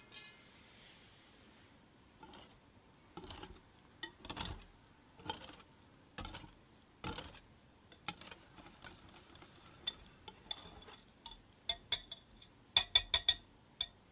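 Wire balloon whisk beating eggs and oil in a glass mixing bowl: separate strokes about once a second at first, then faster whisking with the wires clinking against the glass, the loudest clinks near the end.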